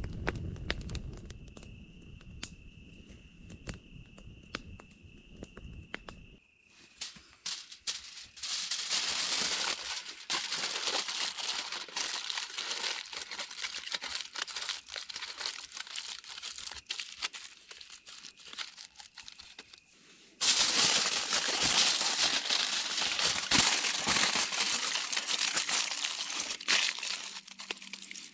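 A wood campfire crackling for the first few seconds. Then aluminium foil crinkling loudly as hands wrap it around food, in long continuous stretches that grow louder about two-thirds of the way through.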